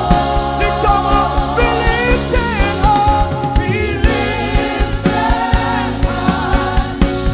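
Live gospel worship music: voices singing over a band, with a steady drum beat and held keyboard chords.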